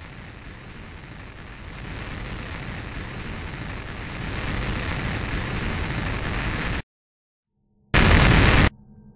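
Static hiss growing louder in steps, then cutting off suddenly about seven seconds in; after a second of silence, a loud short burst of static comes near the end.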